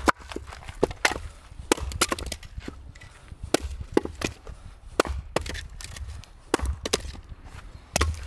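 Fiskars splitting axe chopping firewood into smaller splits on a stump chopping block: a run of sharp wooden knocks and cracks, about one or two a second and sometimes in quick clusters.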